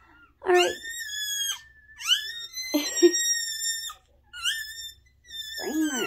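Newborn Siberian Husky–Bernese Mountain Dog mix puppy crying: four or five drawn-out, high-pitched cries in a row, each rising at its start and then held. The strong crying is the sign of a puppy that, revived after being born lifeless, is now breathing and screaming vigorously.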